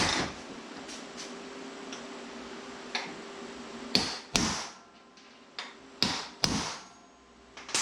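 Hammer striking a dull transfer punch on steel bracket stock to mark a bolt hole: a few light taps, then four sharper blows in two pairs from about four seconds in.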